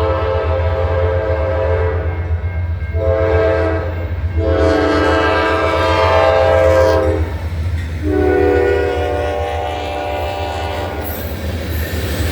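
Norfolk Southern diesel locomotive's multi-chime air horn sounding a series of blasts: the end of one long blast, a short one, a long one, then a last long blast about eight seconds in that comes in lower in pitch as the locomotive passes. A steady low diesel engine drone runs underneath, and the hiss of wheels on rail rises near the end.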